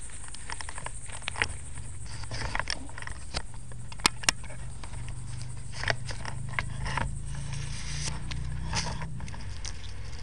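A homemade Lego-and-rubber-band camera rig scraping, rattling and crackling as it rolls over sand and dry twigs, heard close up through the cheap camera's own microphone over a steady low hum. There are two sharp clicks a little after four seconds in.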